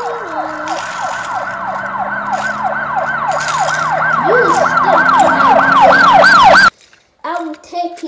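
Police siren in a fast yelp, about three rising-and-falling sweeps a second, growing louder and cutting off suddenly about two-thirds of the way through. A brief voice follows near the end.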